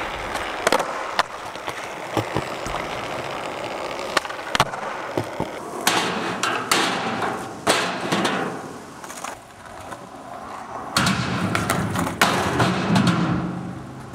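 Skateboard wheels rolling over rough asphalt, with sharp clacks of the board popping and landing several times.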